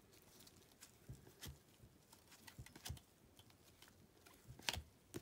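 Near silence with a few faint, scattered clicks and taps of trading cards being handled and flipped through by gloved hands.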